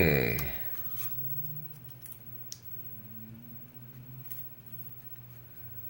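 A few faint, scattered small clicks and taps from handling a lock cylinder and lockpicking tools, over a steady low hum.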